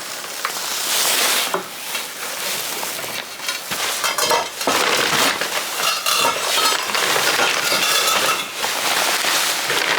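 A heavy hearth stone being shifted with a pry bar over a sandy base: continuous gritty scraping and grinding, with small clinks of metal and stone throughout.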